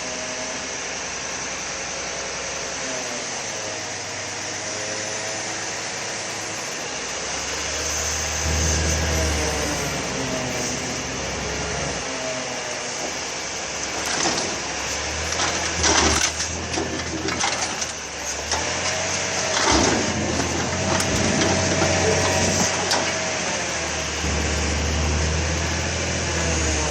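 Grapple truck's diesel engine running, its revs rising and falling several times as the hydraulic crane and grab work, with a wavering whine over it. In the middle comes a run of sharp clanks and knocks.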